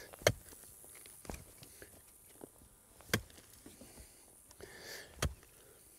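Pickaxe striking into the soil while digging a trench: three heavy blows a few seconds apart, with softer crunching and scraping of dirt between them.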